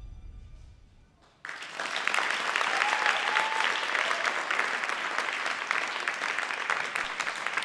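The last low notes of the performance music fade out. About a second and a half in, an audience suddenly breaks into steady applause.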